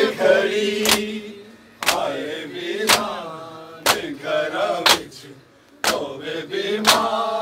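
A group of men doing matam: they beat their chests in unison, about one sharp slap a second. Between the slaps, their voices chant lines of a Punjabi noha.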